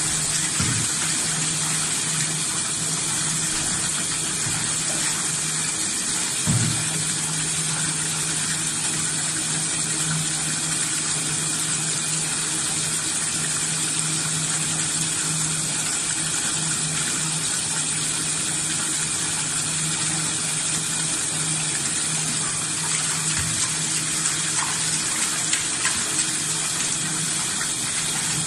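Tap water gushing steadily into a plastic tub, splashing over shucked scallops in a plastic basket during their wash. A steady low hum runs underneath, with one knock about six and a half seconds in and a few light knocks near the end.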